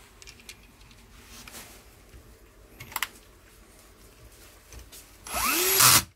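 A few light clicks of metal parts being handled, then about five seconds in a cordless drill with a long hex bit whirs up in pitch for under a second, driving a screw into the rifle's metal receiver.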